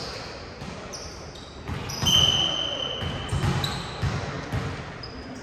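Indoor volleyball game play: dull thumps of ball contacts and footfalls on a gym floor, with sneakers squeaking several times, one long squeak about two seconds in.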